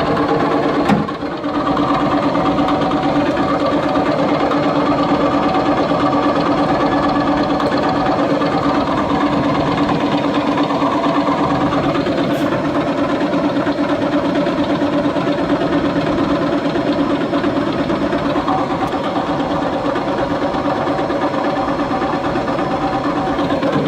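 Rotating machine shaft running on bad bearings: a steady, rough mechanical whirring with a constant hum, the sign of worn bearings. There is a brief dip and click about a second in.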